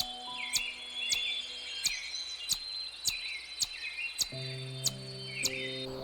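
A sharp chirping call repeated about twice a second over background music of slow held notes. The chirps stop near the end.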